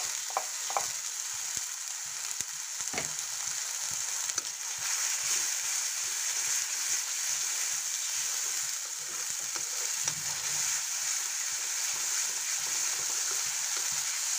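Ground masala gravy paste sizzling in hot oil in a kadhai, stirred and scraped with a spatula, with a steady high hiss. There are a few sharp knocks of utensils on the pan in about the first second and one more about three seconds in. The paste is being fried on a low flame until it releases its oil.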